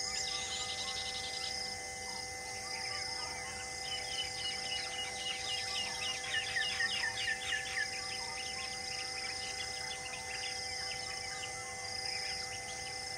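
Outdoor wildlife ambience: a bird calls a rapid run of quick falling notes in the middle, over the steady high drone and pulsing of insects.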